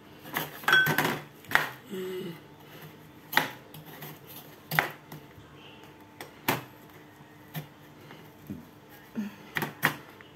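A hard, dense block of palm sugar (gula merah) being broken up with a kitchen utensil: sharp, irregular knocks and clinks, roughly one a second, with a quick cluster of them near the end.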